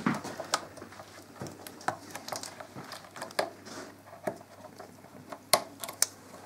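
A handful of short, light clicks and knocks, scattered irregularly, from hands handling small parts and fittings on a motorcycle's front end.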